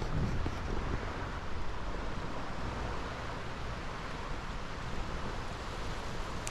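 Steady wind on the microphone, with small waves washing onto a sandy lakeshore beach.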